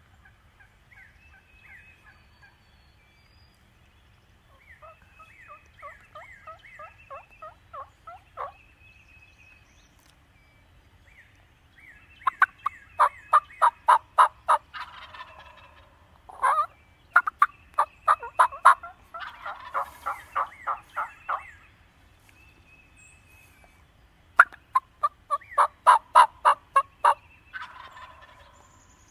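Wild turkeys gobbling again and again, with fainter calls in the first few seconds. From about twelve seconds in come several loud runs of rapid notes at about four a second, with hazier, more distant calls between them.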